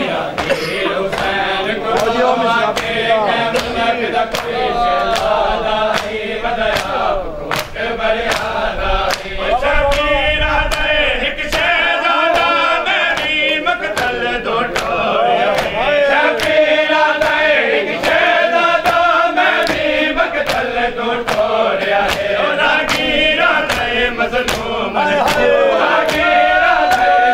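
A crowd of men chanting a noha together in unison, over a steady beat of sharp slaps from hands striking bare chests in matam.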